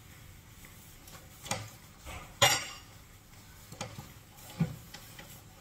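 Four separate knocks and clinks of kitchen items on a stone benchtop while it is wiped with a sponge; the loudest and sharpest, a ringing clink, comes about two and a half seconds in.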